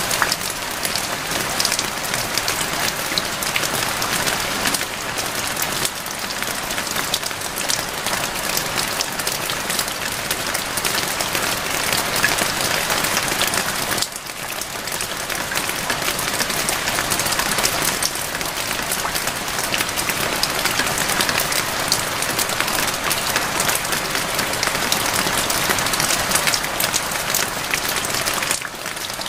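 Steady heavy rain: a dense, even hiss of falling rain with many close individual drop ticks, dipping briefly about halfway through and near the end.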